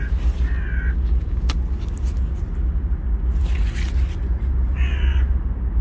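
Steady low rumble of wind buffeting a handheld phone's microphone, with a short high chirping sound at the start and again about five seconds in.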